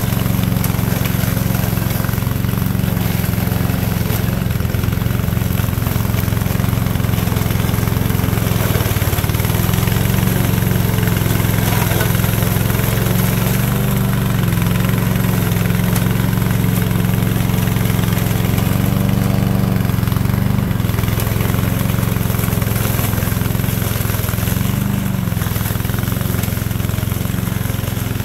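Engine of a tracked remote-controlled mower running steadily as it cuts tall grass, its pitch dipping briefly a few times under load.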